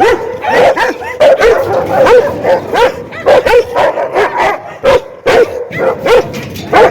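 A dog barking angrily and without a break, in short sharp barks about two a second.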